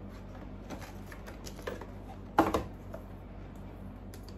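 Small clicks and rustles from handling a cardboard toy box and a plush doll, with one louder thump about two and a half seconds in.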